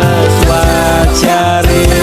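Loud music: a Javanese DJ-remix track with sustained melody notes over a pulsing bass beat.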